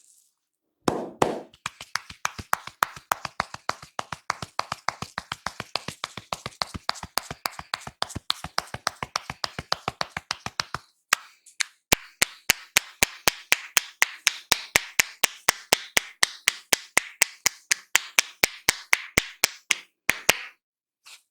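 Rapid, even percussive tapping on a person's head by a barber's hands during a head massage, about five strikes a second, in two long runs with a short pause about eleven seconds in.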